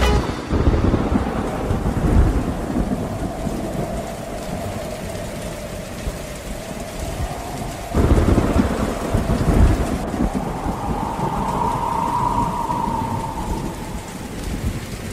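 Thunderstorm: steady rain with rolling thunder rumbling low, and a fresh thunderclap about eight seconds in. A faint sustained tone runs underneath and swells briefly near the end.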